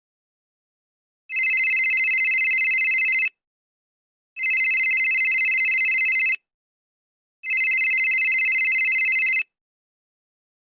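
Telephone ringing three times as a call is placed. Each ring is a steady trill about two seconds long, with about a second of silence between rings.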